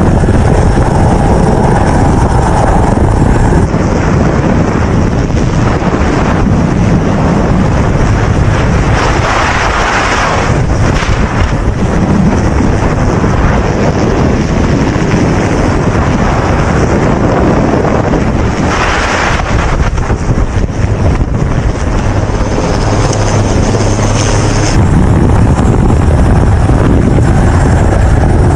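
Storm wind roaring and buffeting the microphone aboard a ship in heavy seas, a dense steady rumble with surges of rushing sea noise; the sound shifts abruptly a few times.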